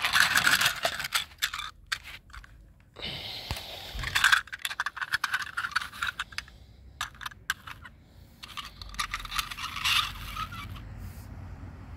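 Small die-cast toy cars handled by hand, with irregular scraping and clicking as they are moved in a plastic basket and pushed across artificial turf. The loudest knock comes about four seconds in.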